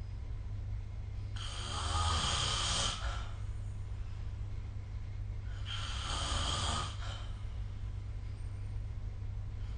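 A sleeping person snoring: two rasping snores about four seconds apart, each lasting a second or more, over a steady low hum.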